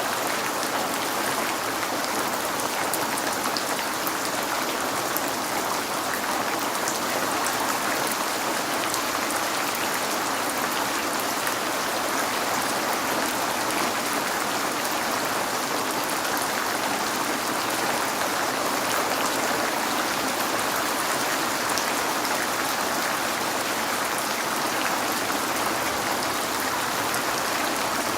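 Steady rain falling on a window and outside surfaces, a constant hiss dotted with fine drop ticks.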